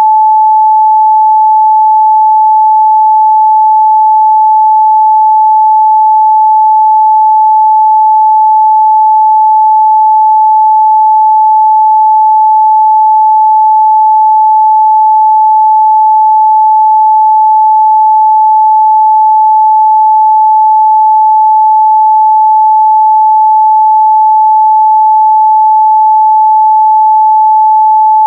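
A steady, loud 867 Hz pure sine-wave test tone, unbroken and unchanging in pitch.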